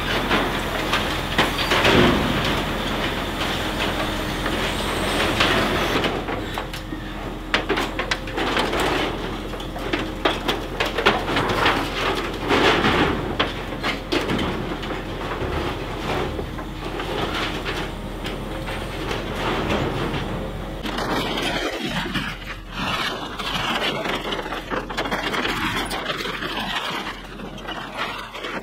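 DAF truck's engine running the hydraulics of its loader crane with a steady hum, as the grab lifts and drops scrap corrugated iron roofing sheets: repeated metallic clanks, crashes and scraping of sheet metal.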